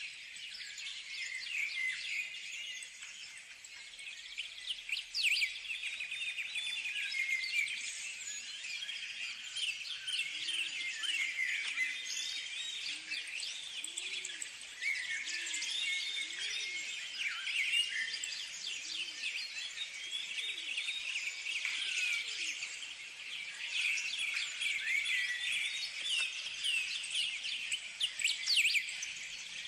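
Many small birds chirping and singing at once, a dense chorus of short high chirps. Near the middle a lower call repeats about once a second for several seconds.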